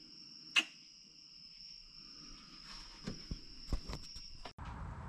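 A steady high-pitched insect trill, with a sharp click about half a second in and a few light knocks near the end. Just before the end it cuts off abruptly to a low rumbling noise.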